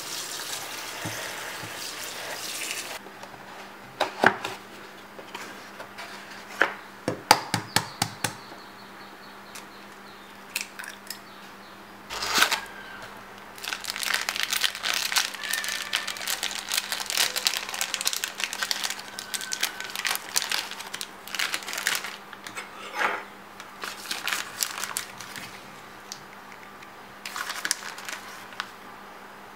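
Kitchen handling sounds. First come a few sharp knocks, then a metal spoon beats egg in a plastic bowl in a long run of rapid clicking and scraping. Near the end comes the crinkle of a plastic bag as breadcrumbs are shaken out of it.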